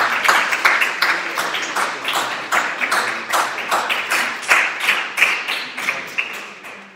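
A small audience applauding, many hands clapping at once, dying away toward the end.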